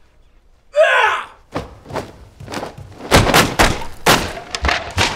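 A short, loud martial-arts shout (kihap), then a quick run of about a dozen sharp cracks and thuds as taekwondo kicks and strikes hit and break wooden boards. The hits are loudest in the second half.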